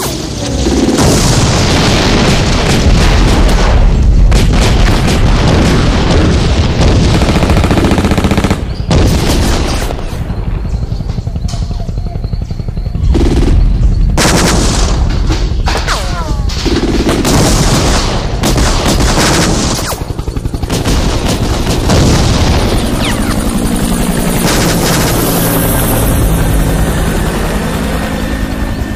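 Loud, sustained gunfight: rapid automatic gunfire mixed with single shots and booms, with brief lulls about ten and twenty seconds in.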